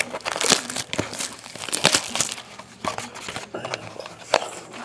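Hands tearing open a small cardboard Bowman Sterling baseball card box and crinkling the wrapped pack inside: a busy run of irregular crackles and short rips.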